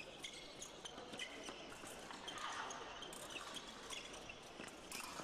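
Faint sounds of a fencing bout in a large hall: irregular taps and knocks of footwork on the piste with a few brief high squeaks, and scattered sharp clicks.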